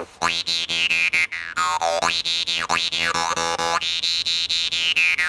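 Dan moi, a brass lip lute (jaw harp), plucked in quick repeated strokes against the lips. It gives a buzzing, electric-sounding drone whose bright overtone sweeps up and down again and again as the mouth changes shape.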